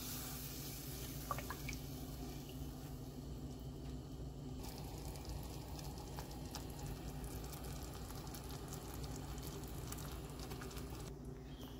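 Kadhi, a yogurt and gram-flour curry, heating in a pan as it comes up to a boil: faint bubbling and a few small ticks over a steady low hum.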